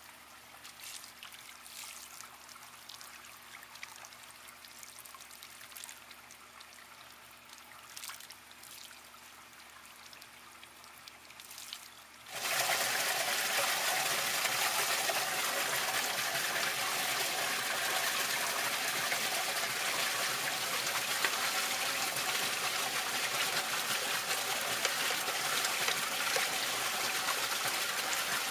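Water trickling faintly, with a few light clicks. About twelve seconds in, steady loud rushing water starts abruptly: water running through a homemade glass-tank pond sieve filter.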